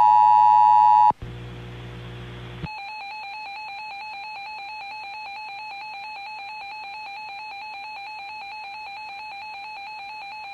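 Electronic emergency alert tones. A loud steady beep cuts off about a second in, then a low buzz runs for about a second and a half. After that a warbling tone of three notes at once holds evenly for the rest.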